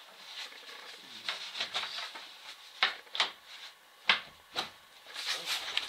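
A wooden door or hatch being worked open: scraping and rubbing of wood, with four sharp knocks in the middle of it.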